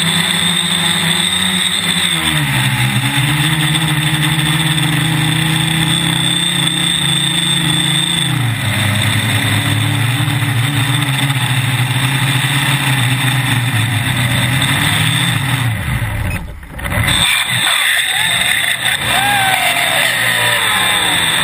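Quadcopter's electric motors and propellers humming, heard from the camera on board. The pitch steps down twice, then falls away with a brief dip about sixteen seconds in as the throttle comes back and the craft drops lower. A rougher, wavering sound follows near the end.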